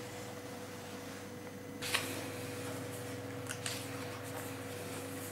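Paper pages of a book rustling as they are handled and turned, with a sudden rustle about two seconds in and two light clicks a little later, over a steady low electrical hum.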